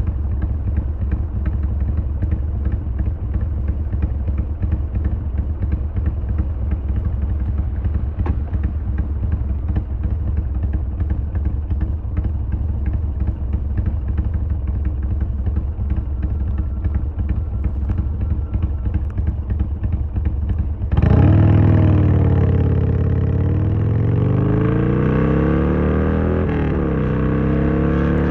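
Harley-Davidson Sportster XL1200R V-twin running on the road: a steady low rumble with a dense rattle of fine clicks over it, the clattering noise the owner is tracking down and suspects comes from the side stand. About 21 seconds in the sound changes suddenly to the V-twin's note sweeping down and up as the engine revs.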